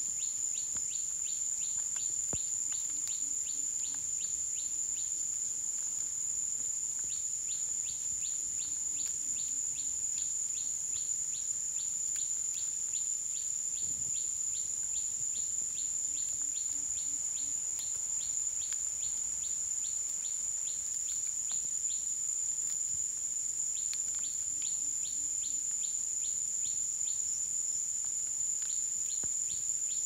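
Forest insect chorus: a steady high-pitched drone, with runs of quick repeated chirps, about three a second, that stop and start.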